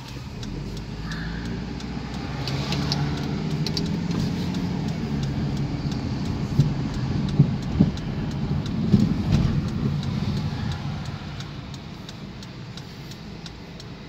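Car cabin noise while driving: a steady low engine and tyre rumble that rises as the car gets up to speed and eases near the end as it slows. There are a few sharp thumps in the middle and a faint regular ticking.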